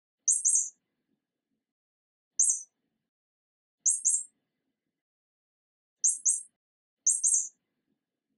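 Mouse squeaking: five short bursts of very high squeaks, most of them quick doubles, a second or two apart.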